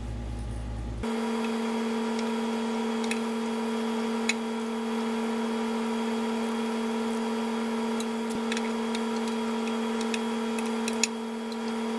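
Scattered single metallic clicks of a socket wrench tightening the thermostat-housing bolts, the sharpest one near the end, over a steady electric hum.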